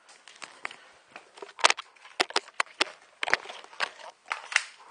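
Sporadic airsoft gunfire: single sharp cracks at irregular intervals, some in quick succession, during an exchange of fire.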